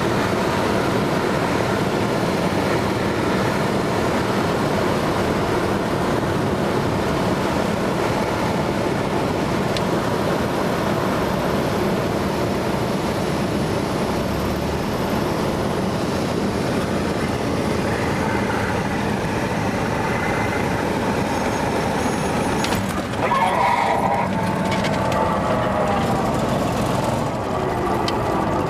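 Cessna 172's piston engine and propeller running steadily, heard inside the cabin in flight. About 23 seconds in there is a short louder moment with some wavering tones.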